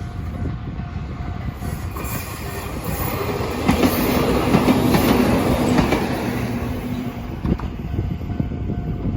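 A Jōmō Electric Railway train passing over a level crossing, loudest from about three and a half to six seconds in, with wheels clicking over the rail joints. The crossing's old standard fast-tempo electronic warning bell keeps ringing behind it.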